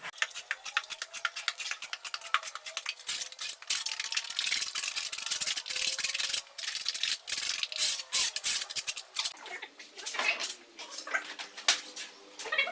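Rapid, dense scraping and clicking of a hand tool working against a hard surface, busiest for the first nine seconds and then thinning out.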